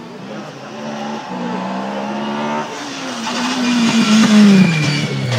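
Ford Escort RS 2000 rally car's engine approaching at full throttle, getting steadily louder, with a gear change about a second in and another after about two and a half seconds, then dropping in pitch over the last two seconds.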